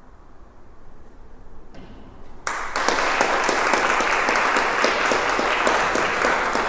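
After a quiet couple of seconds, an audience breaks into applause about two and a half seconds in: dense, steady clapping that continues.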